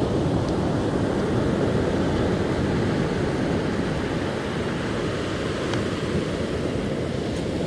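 Steady rushing of wind buffeting the microphone, mixed with the wash of ocean surf breaking on the beach.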